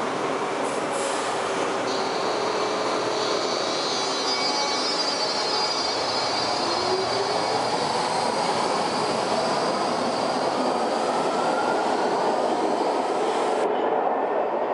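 Budd-built Baltimore Metro subway train running on its rails, with a steady high-pitched squeal and a motor whine that rises in pitch through the middle.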